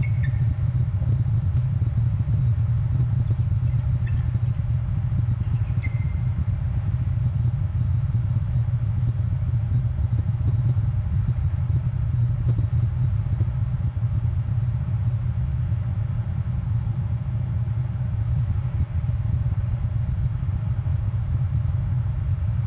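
Steady low rumble picked up by the outdoor microphone of an eagle nest camera, with a few faint, short high chirps in the first six seconds.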